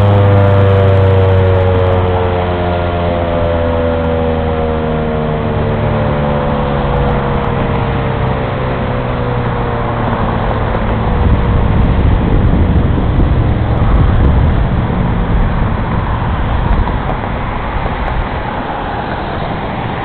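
Rotating outdoor tornado warning siren winding down with its power cut, its tone sliding slowly down in pitch and fading out over the first several seconds. Then road traffic noise, with a vehicle passing about twelve seconds in.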